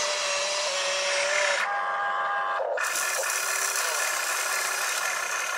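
Electric motors of a radio-controlled excavator whining as it lifts its loaded bucket and swings the boom round. The pitch changes about one and a half seconds in, and the motor cuts out briefly near three seconds.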